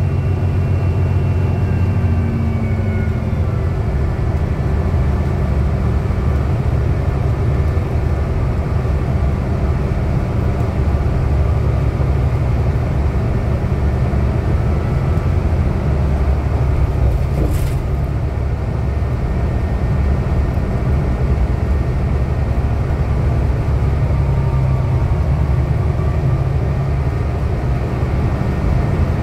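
Inside a 2010 New Flyer DE60LF hybrid articulated bus under way, with its Cummins ISL diesel and Allison hybrid drive: a steady low rumble mixed with road noise. A faint high whine falls away in the first few seconds, and there is a brief click about halfway through.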